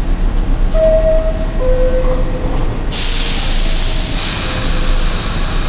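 R62A subway train standing at the platform with its equipment running, two short tones sounding one after the other, the second lower, then a sudden steady hiss of air starting about three seconds in.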